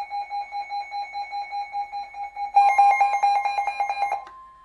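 Weather radio alert beeping, a pulsed tone about three times a second. A little over two and a half seconds in, a louder, faster chirping alarm and the steady 1050 Hz weather-radio warning tone join in. Near the end the beeping stops, leaving the steady tone: the alert that comes before a broadcast snow squall warning.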